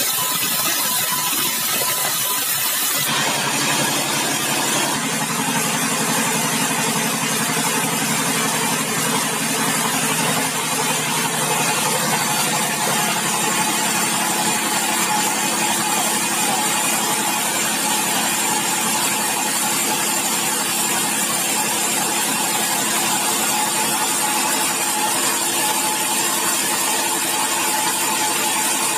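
Sawmill band saw machinery running steadily with a hum of several steady tones. During the first three seconds a board is being sawn, which adds a high hiss that stops abruptly.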